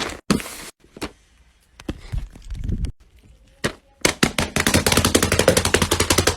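Fidget toy being clicked and popped: a few scattered sharp clicks, then from about four seconds in a fast run of clicks, roughly a dozen a second.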